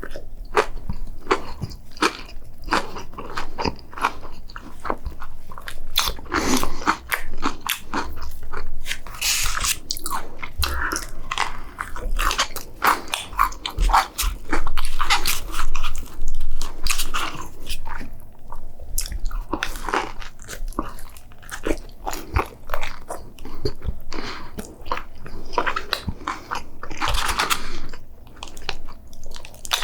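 A person biting and chewing food close to the microphone, with irregular bites and mouth sounds and no talking.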